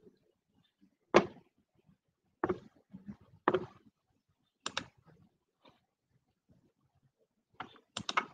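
Scattered knocks and clicks of things being handled, at uneven intervals with quiet gaps between them, and a quick run of several clicks near the end.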